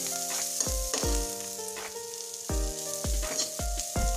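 Chopped onion, ginger, garlic and green chilli with chilli powder sizzling in oil in a non-stick pan as a spoon stirs them. Background music with held notes and a low beat plays over the sizzle.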